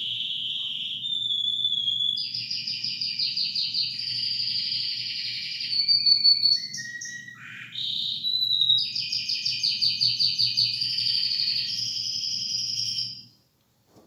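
Domestic canary song: long, rapid trills and rolls, broken in the middle by a few short notes, then another long trill. It stops shortly before the end, and a low steady hum under the song stops with it.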